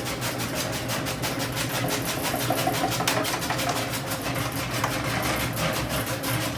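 Radish-cutting machine running: a steady motor hum with a rapid, even rhythm of cutting strokes.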